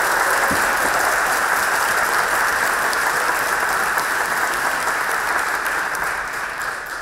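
Audience applauding: a steady crowd of clapping hands that begins to die away near the end.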